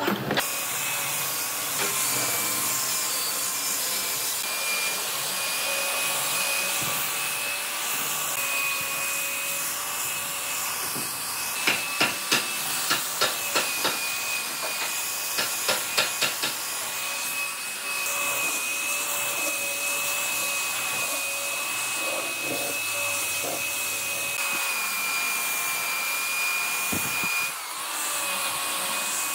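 Makita belt sander running steadily against the wood of a reclaimed railway-sleeper tabletop, a constant motor whine with the hiss of the belt on the wood. About halfway through, a run of sharp ticks sounds over it for a few seconds.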